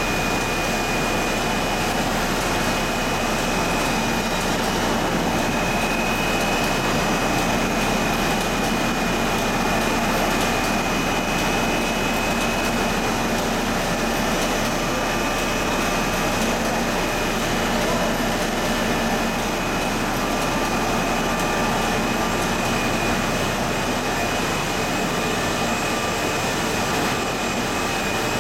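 Steady running noise of a twin-screw polystyrene sheet extrusion line: motors and roll stack running with a constant hum and a thin high whine.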